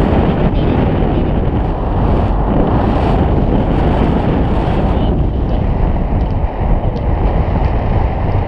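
Airflow of a tandem paraglider flight buffeting a handheld action camera's microphone. It makes a loud, steady, deep rushing noise.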